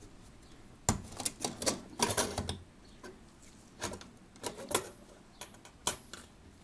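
Metal clamps of a clock-bushing tool being undone, with the brass movement plate shifting in the tool: a string of small clicks and knocks, dense in the first few seconds and then scattered.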